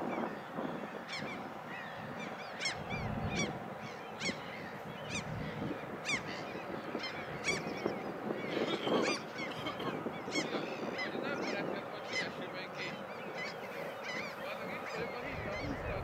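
A flock of geese honking, many short calls repeated over and over, with a low rumble underneath about three seconds in and again near the end.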